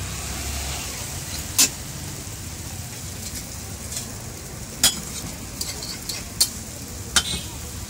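Dosas sizzling on hot griddles, a steady frying hiss, with a sharp metal clink of a utensil three times, about a second and a half in, near the middle and near the end, and a few fainter taps between.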